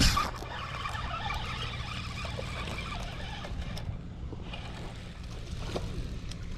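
Spinning reel cranked fast to bring in a hooked largemouth bass, its gears whirring, over wind rumbling on the microphone. A short sharp burst comes right at the start, and a brief splash near the end as the fish thrashes at the surface.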